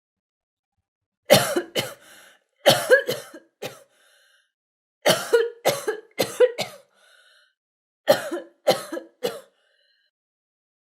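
A girl coughing in four short bouts of two to four sharp coughs each, about a dozen coughs in all.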